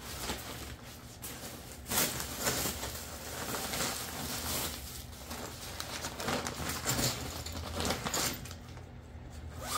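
Bubble wrap and nylon bags rustling and crinkling as they are handled and unwrapped, with a few sharper crackles, the loudest about two seconds in.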